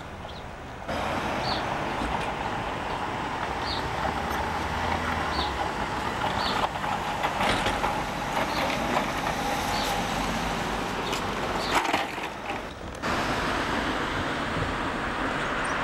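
Steady engine and road noise of a car driving, heard from inside it. The noise comes in suddenly about a second in and drops out briefly near the end, with a few faint high chirps over it.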